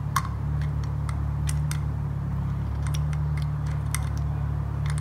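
Scattered light metallic clicks and ticks of an Allen key working against a turbocharger's dynamic seal plate inside the bearing housing as it is pushed out from the inside, over a steady low hum.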